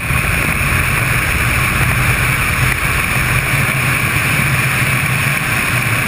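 A vehicle driving at road speed: steady road and wind noise over a low engine drone, picked up by a camera mounted outside on the hood.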